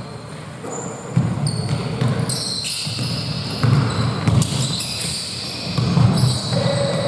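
Basketball game on an indoor court: the ball bouncing in repeated dull thuds, mixed with short high squeaks that start and stop suddenly, from players' shoes on the hardwood.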